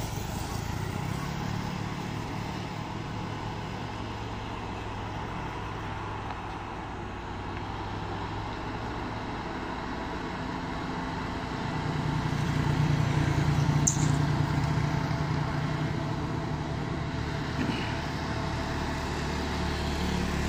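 Diesel engines of loaded trucks running as they climb a steep bend, a steady low drone that grows louder about twelve seconds in and then eases off again.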